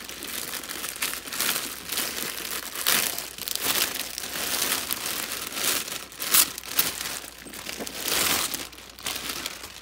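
Clear plastic wrapping crinkling and rustling as it is pulled off a handbag by hand, in irregular bursts, loudest about six and eight seconds in.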